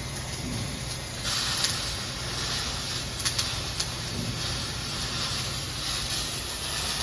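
Flux-core arc welding: the arc strikes about a second in and runs as a steady crackling hiss with a few sharp pops, over a low hum.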